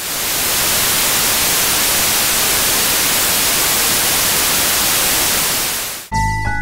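Loud, even TV-static hiss, like white noise from an untuned television, which cuts off suddenly about six seconds in. Music with held tones and a deep bass starts right after.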